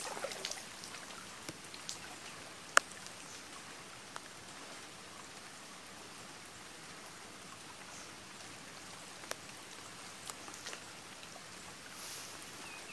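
Steady patter of light rain and dripping water, with a few sharp ticks scattered through and a slightly louder rush of water near the end.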